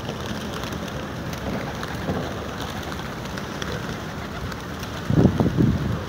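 Wings of a large flock of feral pigeons flapping as they take off and land around food, a steady rustling clatter with many small wing claps. A louder low burst of noise starts about five seconds in.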